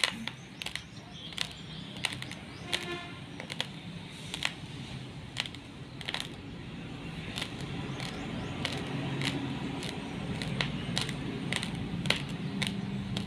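Raw basmati rice grains crunched between the teeth: sharp, irregular cracks about every half second to a second, over a low steady hum.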